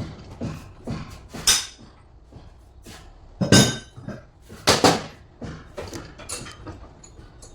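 Irregular metallic clinks and knocks of tools and parts being handled, with a few louder ringing metal strikes about one and a half, three and a half and nearly five seconds in.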